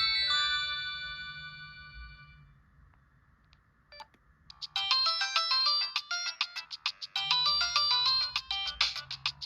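Samsung SGH-T809 mobile phone playing ringtones: the last notes of one melody fade out over about two seconds, a click follows, then a different ringtone begins about five seconds in as a fast run of short, high notes.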